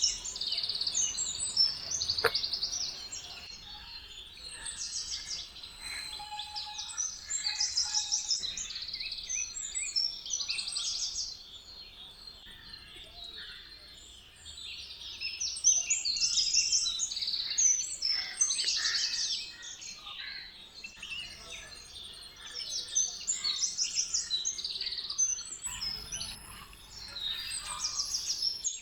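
Many small birds chirping and trilling over one another, high-pitched, in louder and quieter bouts.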